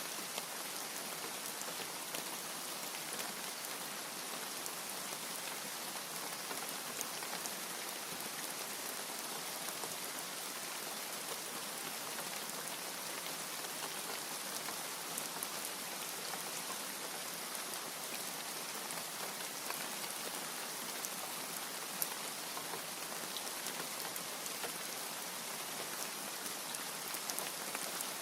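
Steady rain falling, an even hiss dotted with scattered sharp ticks of individual drops.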